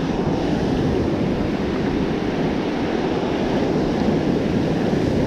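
Surf breaking and washing up the beach, mixed with wind buffeting the microphone: a steady rushing noise with no let-up.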